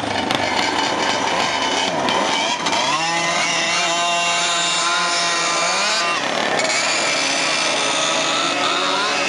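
Several vintage go-kart two-stroke engines running at once on the grid, blipped and revved so their overlapping pitches climb and fall, with the busiest revving a couple of seconds in.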